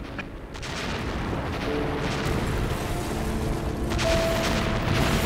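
War-film soundtrack: a heavy, continuous rumbling boom of blast noise that swells about half a second in, with held notes of a dramatic music score coming in underneath.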